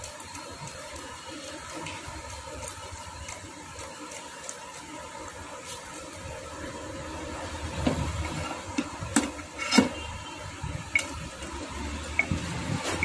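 Steady background hiss, then from about eight seconds in a series of sharp metallic knocks and clicks as a stripped motorcycle engine's crankcase parts are handled on the bench.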